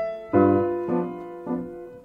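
Background piano music: single notes struck about every half second, each ringing and fading before the next.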